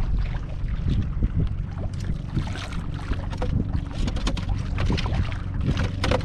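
Wind buffeting the microphone on a small boat at sea, over a steady low hum, with scattered light knocks and splashes.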